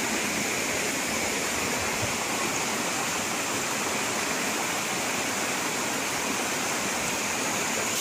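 Steady rush of water flowing over rocks in a shallow stream below a waterfall.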